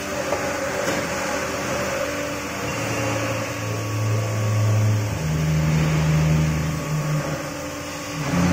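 DW130CNC CNC pipe bending machine running through a bend on a 127 mm tube, a steady mechanical hum with a few light clicks near the start. A low drone sets in about three seconds in, steps up in pitch around five seconds, and drops away about seven seconds in, as the bending drive works.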